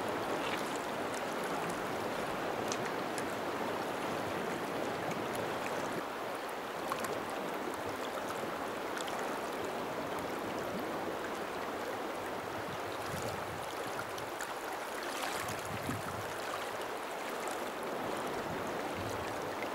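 River water running steadily past a gravel shore, with a few faint ticks over the constant rush.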